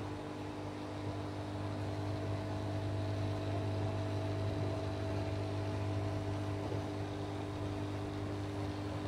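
Steady hum of aquarium equipment, the submersible water pump and the air supply to the bubbling air stone, over an even hiss of moving water and bubbles.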